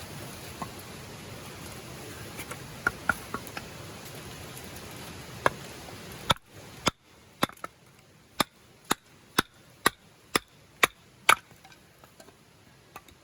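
Firewood being chopped: a run of about ten sharp, evenly spaced strikes, about two a second, after a few lighter scattered knocks.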